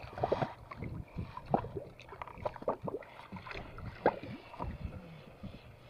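Small waves lapping and splashing against the hull of a small boat on choppy sea, with irregular short knocks and splashes.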